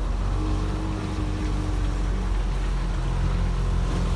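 A steady, low engine drone holding one pitch throughout, with no revving.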